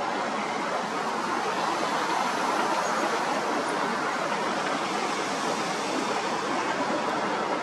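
Steady outdoor rushing noise, even and unbroken, with no engine or voice heard.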